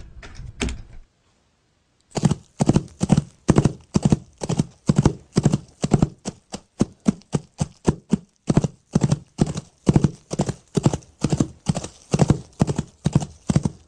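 Foley horse-hoof props struck in a steady walking rhythm, making the clip-clop of a horse's hoofbeats; the hoofbeats start about two seconds in.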